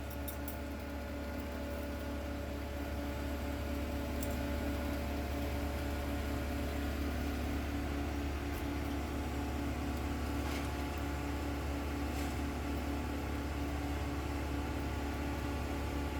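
Steady low drone of a heavy machine's engine running at an even speed, with a few faint ticks over it.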